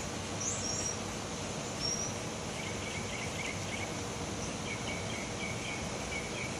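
Outdoor ambience: a steady background hiss with a few short, high bird chirps early on, then a run of short repeated chirps from about a third of the way in.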